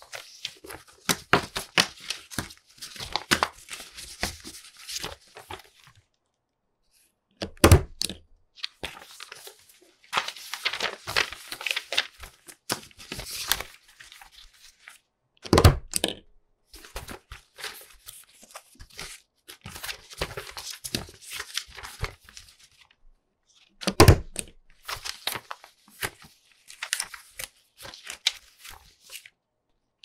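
A stack of paper sheets being shuffled and tapped square, then a desk stapler punched down with a loud thunk. The cycle happens three times.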